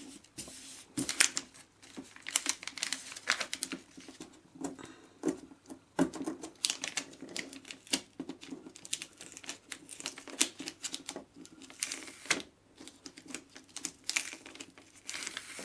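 Self-adhesive plastic book foil being handled, turned and pressed around a model glider's wing: irregular crackles and sharp clicks of the stiff film.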